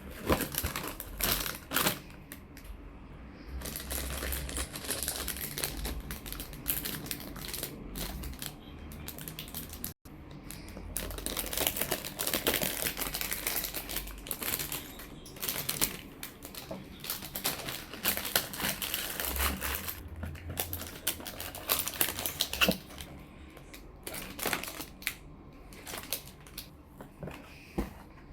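Model kit packaging being handled: plastic crinkling in stretches, with scattered sharp clicks and taps.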